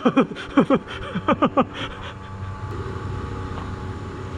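Several short shouted calls from distant voices in the first second and a half, then a steady low hum.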